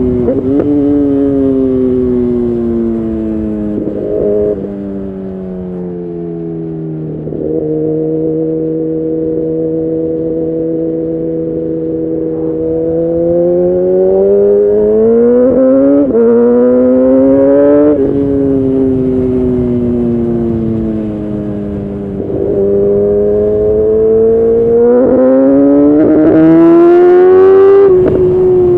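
2011 Kawasaki ZX10R's inline-four engine through a decat Leo Vince exhaust, riding through the gears: revs falling with a couple of quick shifts, a steady stretch at even revs in the middle, then rising and falling again with gear changes, and a strong pull near the end.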